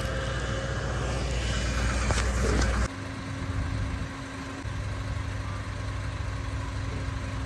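Steady low engine-like rumble, with a few short clicks a little after two seconds in; the rumble changes abruptly about three seconds in and carries on as a steady low hum.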